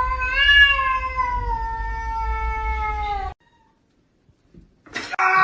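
A cat's long drawn-out yowl that sinks slowly in pitch and cuts off abruptly after about three seconds. Another loud cry begins near the end.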